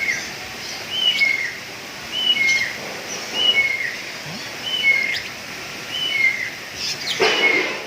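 A bird calling over and over, about once a second, each call a short higher note falling to a lower one. About seven seconds in there is a louder, harsher sound.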